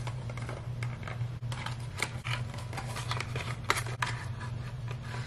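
A small cardboard product box being handled and opened by hand: card scraping and rustling, with a scatter of small clicks and taps.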